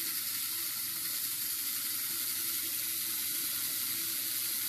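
Hycon HCD50-200 hydraulic freehand core drill with a 200 mm diamond core bit cutting into a stoneware pipe: a steady, even hiss with no change in pitch or level.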